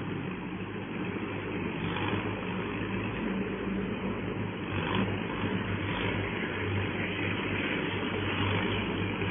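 Tracked rotary tiller's engine running steadily with a low hum as the machine churns wet paddy soil.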